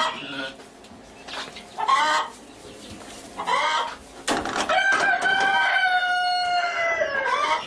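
A rooster crowing: a couple of short calls, then one long crow starting about five seconds in, held for nearly three seconds and dropping away at the end. A sharp knock comes just before the long crow.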